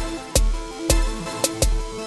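Music with a steady beat: punchy drum hits over deep bass notes, with held pitched instrument lines.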